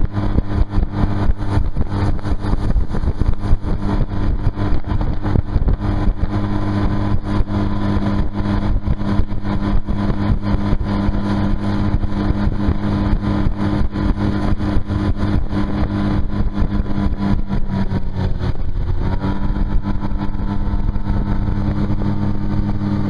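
Tohatsu four-stroke outboard motor running at speed, pushing a duck boat across the water under a heavy rushing noise. The engine note dips briefly about three-quarters of the way through, then steadies again.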